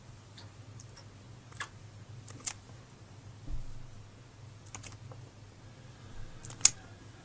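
A few sharp light clicks, the loudest near the end, and a dull thump about halfway, over a low steady hum.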